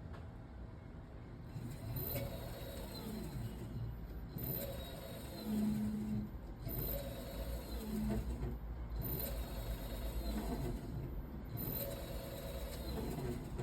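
Electric motorcycle's motor whine rising and falling in repeated short runs, about every two and a half seconds, over a low steady hum. No brake squeal is heard, since the brake has been greased and retightened.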